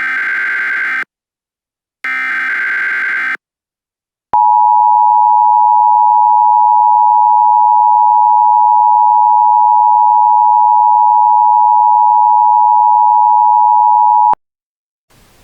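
Emergency Alert System tones: the end of one burst of digital header data and a second one-second burst after a short silence, then the two-tone EAS attention signal, held steady and loud for about ten seconds before cutting off sharply. Faint hiss follows near the end.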